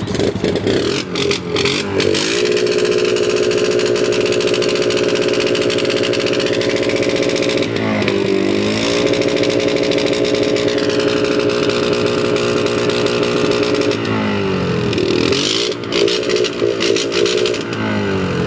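ATV engine running at high, steady revs. About eight seconds in, the revs drop briefly and climb back; from about fourteen seconds they fall away and waver unevenly, with a few sharp knocks near the start and again near the end.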